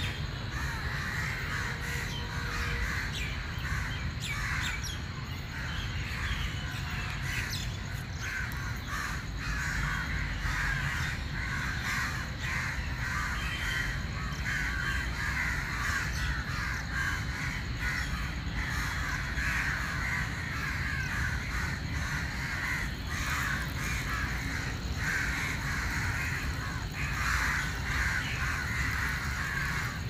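House crows cawing, many short calls overlapping almost without a break, over a steady low rumble of background noise.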